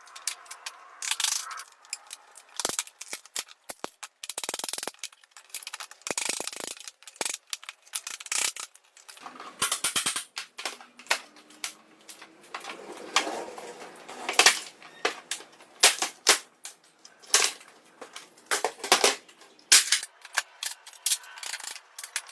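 Irregular knocks, taps and sharp cracks of hand tools on wood as a later-added panel is pried and knocked off an old table's top.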